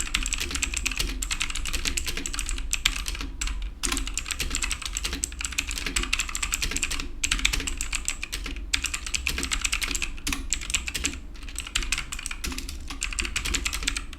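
Fast typing on a Bajeal HJK901 full-size mechanical keyboard with clicky blue Chinese switches: a dense stream of key clicks, broken by a few short pauses. The large stabilized keys (space bar, shift, enter, backspace) rattle noticeably more than the small keys.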